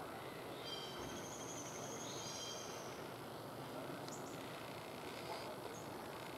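Small birds chirping over a steady background hiss: a drawn-out call from about a second in to about three seconds, then a few short chirps near the middle and the end.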